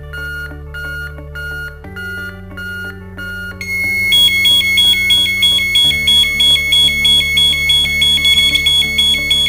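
LaserShield wireless alarm unit sounding an intrusion alarm. It opens with a row of short high beeps about twice a second, the warning to disarm before the alarm triggers. About four seconds in, a loud, rapidly pulsing high-pitched electronic siren takes over. Background music plays underneath.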